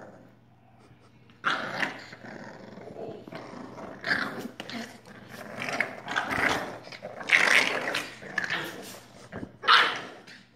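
Olde English Bulldogge puppies growling at each other in rough play, in a string of irregular bursts that start about a second and a half in.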